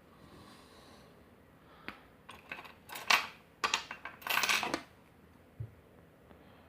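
Small metal lock parts clicking and clinking as a pin-tumbler lock is taken apart, ending in a half-second scraping rattle.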